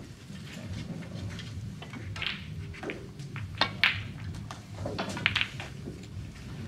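Snooker shot: the cue tip clicks against the cue ball and, a moment later, the cue ball clacks into a red, with another sharp ball click over a second later, over a low room hum.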